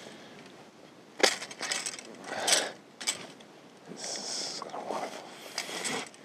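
Pole pruner cutting a branch in an apple tree: a sharp snap about a second in, followed by several shorter crackling and scraping noises of wood and twigs.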